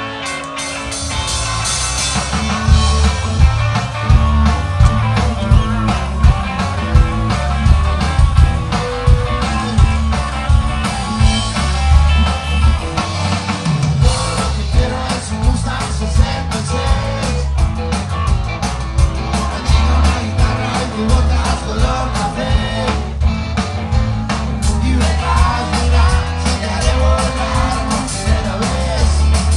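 Live rock band playing loud: electric guitars, bass and drums, with a singer's voice over them. The full band grows louder about two seconds in.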